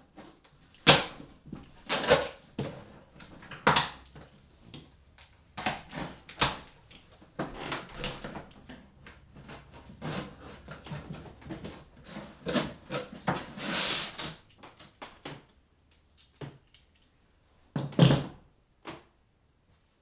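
Irregular clicks, knocks and rustling of hands handling computer hardware and packaging, with a sharper knock near the start and another about 18 seconds in.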